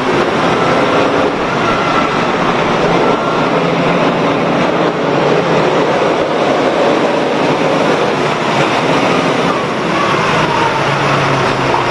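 Large boat-yard forklift's engine running loudly and steadily as the machine drives past close by with a cabin boat raised on its forks.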